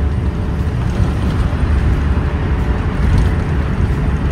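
Steady road noise of a moving car heard from inside its cabin: engine and tyres running at highway speed, heaviest in the low range.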